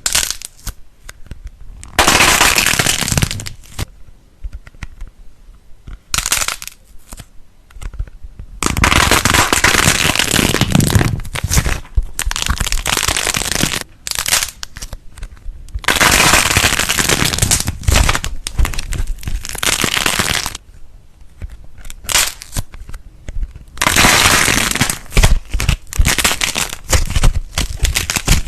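Crunchy material being pressed and crushed, crackling and popping in about five long spells with scattered clicks between.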